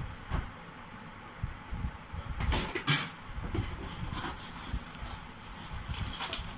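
Cardboard box being opened by hand: the inner box sliding out of its sleeve with rustling and scraping, loudest in a couple of scrapes about two and a half to three seconds in.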